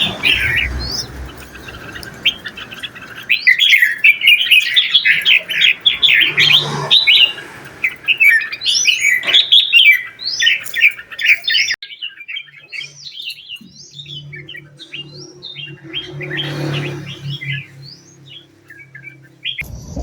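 A bird chirping and twittering in quick, rapid runs of short gliding notes, densest and loudest in the first half, thinning to scattered chirps later. A low steady hum sits under the chirps in the second half.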